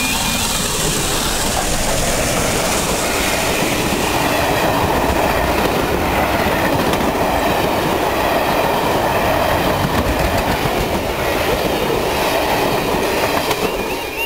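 LNER A4 class steam locomotive 60019 Bittern, a three-cylinder 4-6-2 Pacific, passing at speed with its train of coaches. A loud, steady rush of locomotive and wheels gives way to the rapid clatter of coach wheels on the rails, easing slightly near the end as the train draws away.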